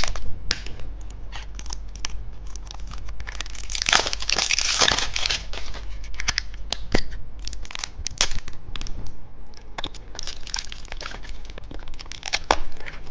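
Candy wrapper being crinkled and torn open, with scattered crackles throughout and a longer tearing rustle about four to five seconds in.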